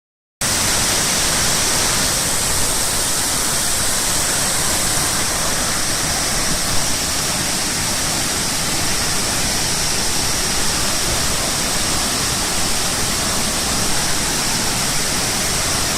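Waterfall: a steady, loud rush of falling water, beginning a split second in.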